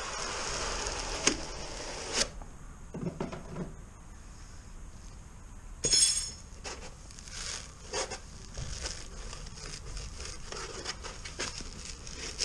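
Cardboard box and foam packaging being handled, a rustling, scraping sound with a few sharp clicks. About six seconds in comes a sharp metallic clink with a short high ring from the steel eyebolt of a neodymium magnet, followed by scattered small knocks and taps.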